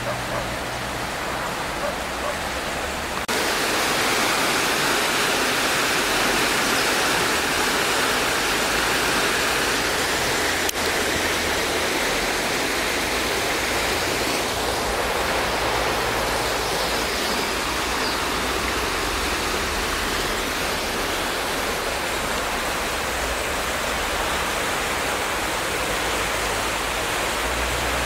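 Rushing water of a river in full flood: a steady, loud noise of fast-flowing water that steps up in level about three seconds in and then holds.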